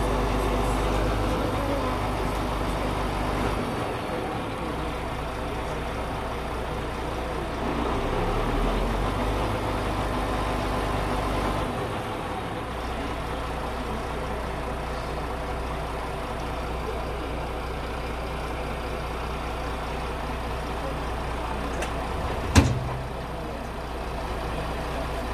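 Heavy crane truck's diesel engine running at a standstill, its note shifting a few times. A single sharp knock sounds about 22 seconds in.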